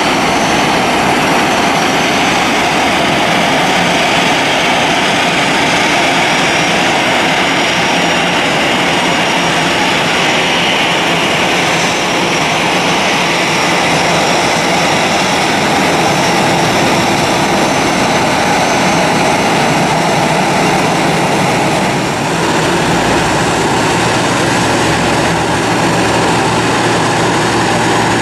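Airliner jet engines running at taxi power, a steady loud rush. Near the end the sound changes and a low hum comes in.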